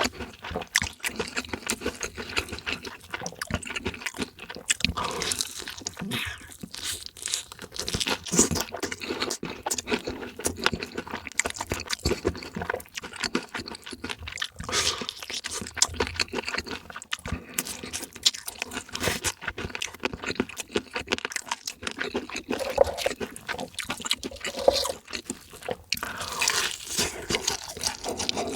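Close-miked crunching and chewing of crispy fried chicken: a dense, irregular crackle of bites, with occasional wet smacking.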